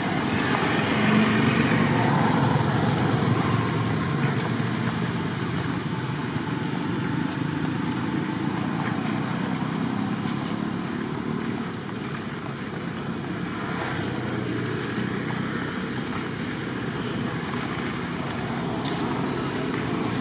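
Steady road traffic noise, with vehicles passing and fading, a little louder in the first few seconds.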